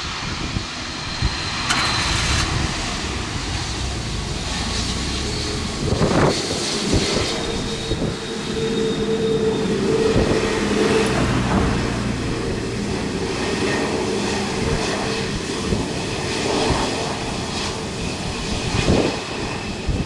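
Airbus A321neo airliner's jet engines running at low taxi power as it rolls past, a steady hum with a faint high whine, mixed with gusty wind buffeting the microphone.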